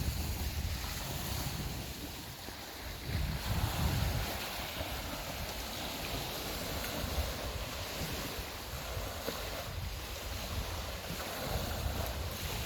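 Wind gusting across the microphone in low rumbles, over a steady wash of Lake Superior surf on the shore.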